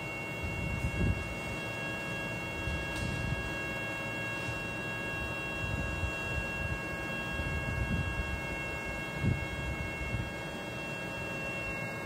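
Vacuum pumps of a leak-testing setup running steadily: a low hum with several steady high-pitched whine tones over it.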